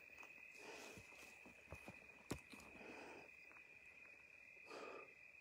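Quiet night ambience: a steady, high cricket trill, with faint rustles in the undergrowth and a few soft clicks, one sharper about two seconds in. The explorer takes the rustling for something walking nearby.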